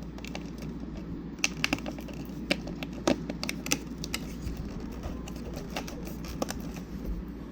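Irregular clicks, taps and crinkles of a cardboard Star Wars calendar box and its plastic contents being handled and opened by hand, with a busy cluster of clicks from about one and a half to four seconds in.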